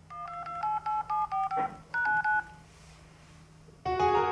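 Phone keypad dialing tones (DTMF): a quick run of about eight two-note beeps, a short pause, then two or three more. Near the end, a bright music chord comes in.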